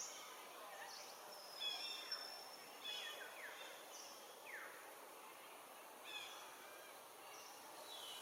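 Birds chirping and calling: scattered short high chirps and quick downward-sweeping whistles over a faint, steady outdoor hiss.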